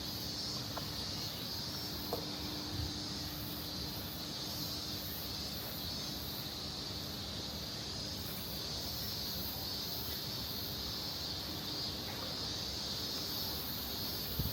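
Insects chirping steadily outdoors: a continuous high-pitched buzz with a faster pulsing chirr above it, over a low steady rumble.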